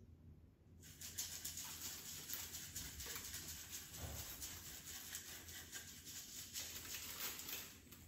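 Confetti being poured out and pattering onto the plastic tops of robot vacuums and the tiled floor in a dense rain of fine ticks. It starts about a second in and stops just before the end.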